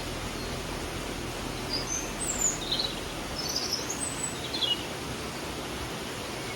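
Steady rush of a flowing stream, with a few high bird chirps and short trills between about two and five seconds in.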